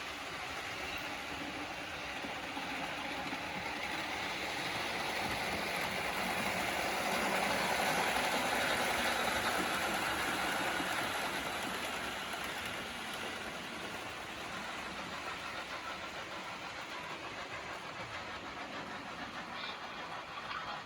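Märklin model train running on the track, its motor and wheels whirring and rattling, growing louder to a peak about eight seconds in and then fading as it passes by.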